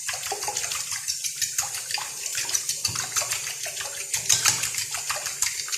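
A whisk beating milk, oil and egg together in a bowl: rapid, irregular clicking against the bowl with liquid sloshing.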